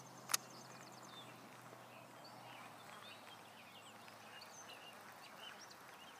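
Faint open-air pond ambience with scattered small bird chirps, broken about a third of a second in by a single sharp click.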